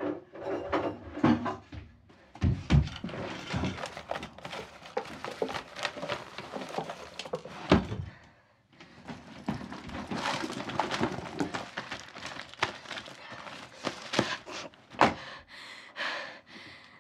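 Hurried rummaging through drawers and a bedside cabinet: wooden drawers and objects knocked and shoved about in a continual run of knocks and thuds, with a sharp thud about eight seconds in and another about fifteen seconds in.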